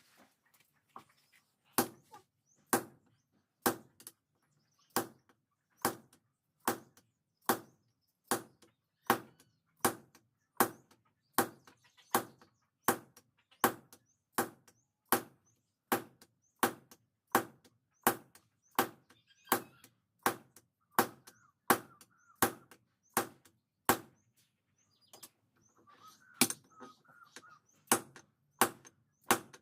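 Steady, rhythmic hand-hammer blows on steel on an anvil, each strike sharp and ringing. The piece is leaf-spring steel being forged into a blade. The blows come about once a second at first and quicken to about three every two seconds, with a brief pause near the end.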